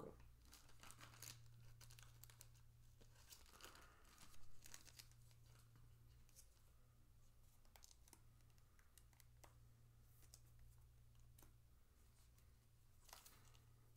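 Faint rustling and light taps of trading cards being handled and set down on a wooden table, with a brief louder rustle about four seconds in, over a low steady hum. Near the end comes a crinkle as a paper card pack is picked up from the stack.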